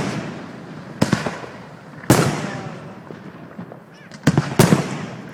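Fireworks exploding: a bang about a second in, a louder one a second later with a long fading rumble, then a quick cluster of bangs near the end.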